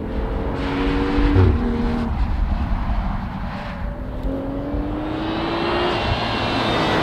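Car engine accelerating, its pitch climbing and then dropping sharply about one and a half seconds in, as at a gear change. It climbs again, and a rush of road and engine noise builds near the end as the car comes close.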